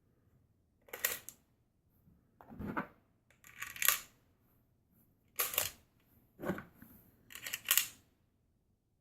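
Maglula magazine loader being worked to push cartridges into a rifle magazine, one round per stroke: six sharp clacks, about one every second or so.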